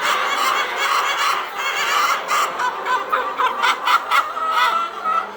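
A flock of laying hens clucking, many short calls overlapping.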